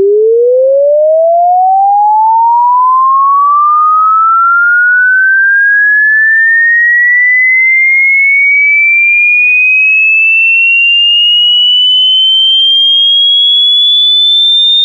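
A single pure electronic tone sweeping steadily upward in pitch at an even loudness, from a low hum to a high whistle: a sine-wave frequency sweep.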